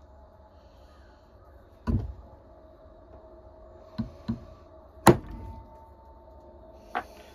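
Five irregular knocks and thumps of objects handled at a workbench, a close pair in the middle and the loudest, sharpest one about five seconds in, over a faint steady hum.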